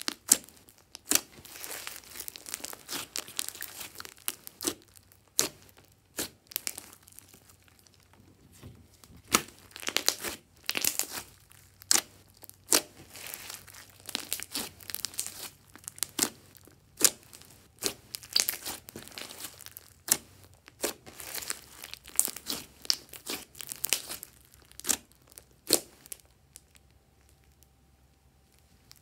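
Glossy slime being squeezed and kneaded by hand, giving irregular sticky clicks, crackles and pops in quick clusters. It goes quiet for the last few seconds.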